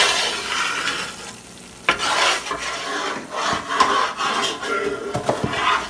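Flat metal spoon stirring and scraping a flour-and-oil roux around an aluminium pot, over and over, with a short lull about a second and a half in.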